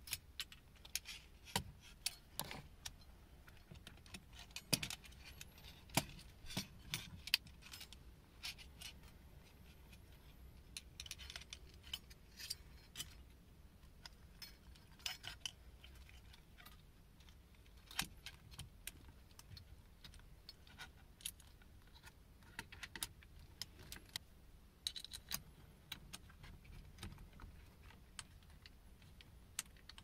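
Irregular small clicks and metallic clinks from steering-wheel hub hardware and wiring being handled and fitted onto the column, a Works Bell short boss and its switch bracket. The clicks come thickest in the first several seconds and then come more sparsely.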